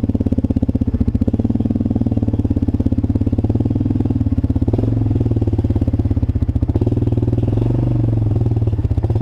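ATV engine idling steadily, its rapid even firing pulses loud and close.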